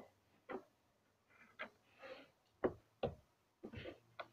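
Butter slime being kneaded and pressed by hand on a tabletop: an irregular run of soft clicks and squishes.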